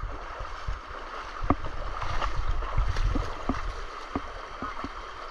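Shallow rocky river running over stones, a steady rush of water with a low rumble beneath it and scattered short clicks.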